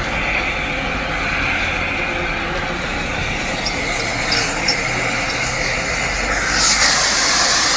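Steady rumble of work at the trackside, then about six and a half seconds in a loud hiss starts abruptly and keeps going.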